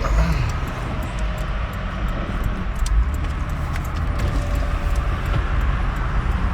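Steady road and engine noise from a 2016 Toyota 4Runner being driven, with a low rumble and many small ticks throughout.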